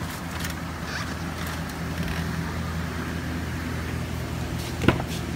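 Chevrolet 5.3-litre V8 idling steadily, with one sharp knock near the end.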